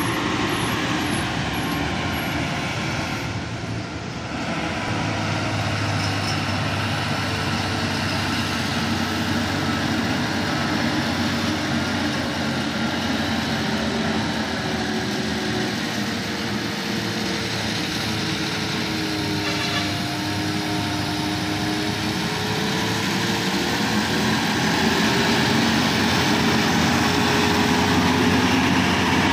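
Heavy diesel engine of a loaded 12-wheel lorry running under load as it takes a hairpin bend, its note slowly rising and falling, getting louder as it comes close near the end. A bus passes at the start.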